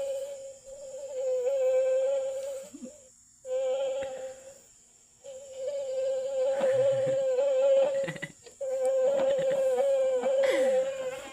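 Mosquito buzzing sound, a steady high whine that wavers slightly and breaks off twice for about half a second. Other brief sounds mix in over it later on.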